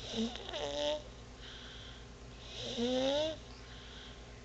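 A sleeping baby snoring: two loud, squeaky snores about two and a half seconds apart, each rising a little in pitch, with softer breaths between.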